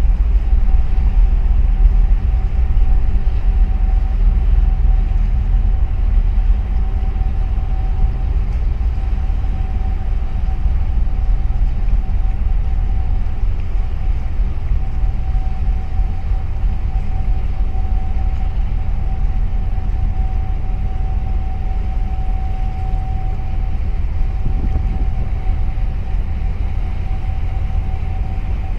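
Steady low engine rumble of a vessel on the water, with a thin steady whine above it; the rumble eases slightly toward the end.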